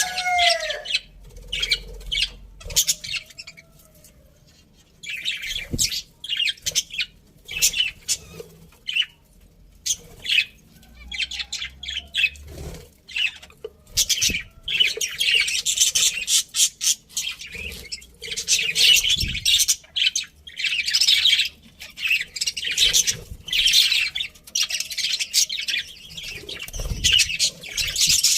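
A flock of budgerigars chirping and chattering in many short, high calls. The calls are sparse for the first few seconds and become a dense, busy chatter from about halfway on.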